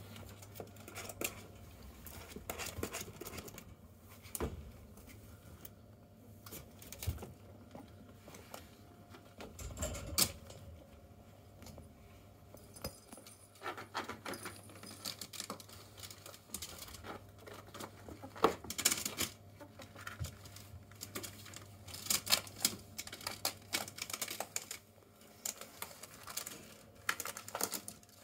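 Two pet ferrets playing and tumbling: an uneven run of clicks, taps and patter from their claws and bodies on carpet, sisal scratching mats and plastic, with louder clusters here and there.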